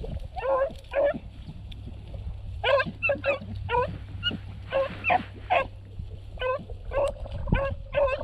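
Beagles baying on a rabbit's trail: a run of short, ringing barks about two a second, sometimes overlapping, as the pack gives tongue on the scent.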